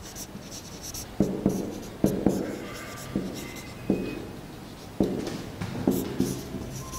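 Marker pen writing on a whiteboard: a string of short, irregular strokes and taps of the tip, with a faint squeak here and there.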